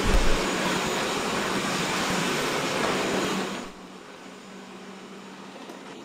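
Xiaomi robot vacuum cleaner running: a steady noise of its suction fan and brushes over a constant low hum. Just past halfway it drops suddenly to a much fainter level.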